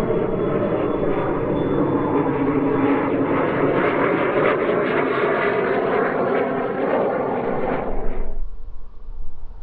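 Model jet turbine of an RC scale Gloster Javelin passing low and fast: a loud rushing whine whose pitch shifts as it goes by. It cuts off abruptly about eight seconds in, leaving a low wind rumble on the microphone.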